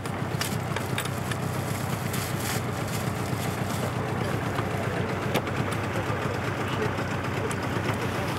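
Outboard motor on a small boat idling with a steady low hum, with a few sharp clicks near the start and one more about five seconds in.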